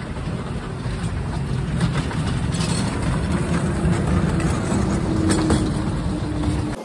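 Miniature park train passing close by: a steady low rumble of its engine and wheels on the track, with a few faint clicks. A steady hum joins in about halfway through, and the sound cuts off suddenly at the end.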